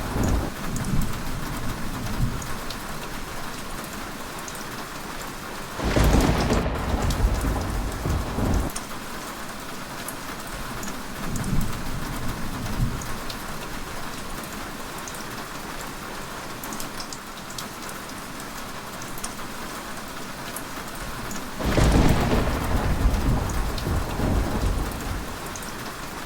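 Heavy rain falling steadily, with rolls of thunder. A loud rumble comes about six seconds in and another near the end, with fainter ones between.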